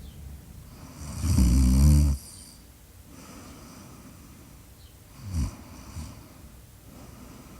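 A person snoring: one loud, drawn-out snore about a second in, then quieter breathing with two short, sharper breaths near the middle.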